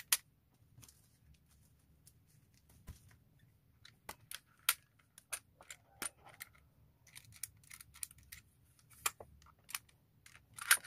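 Small metal lock parts, a door-lock cylinder among them, being handled on a table: irregular light clicks and taps, a sharper one at the start and another about halfway through.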